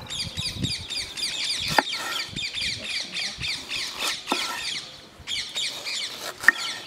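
Birds chirping rapidly and without let-up, a quick run of short falling notes with a brief break about five seconds in. Three sharp knocks of a cleaver chopping a green bell pepper on a wooden board sound about two, four and six and a half seconds in.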